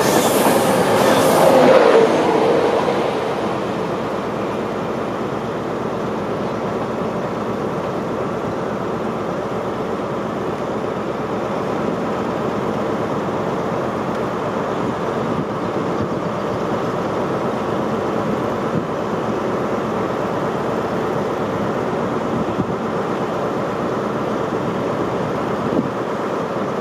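HST passenger coaches rolling past close by, loudest in the first two seconds or so. The sound then settles into a steady, quieter train rumble that lasts to the end.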